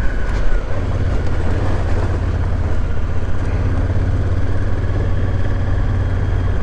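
Adventure motorcycle running at a steady cruising speed on a gravel road: an even low engine drone under a constant rush of wind and tyre noise.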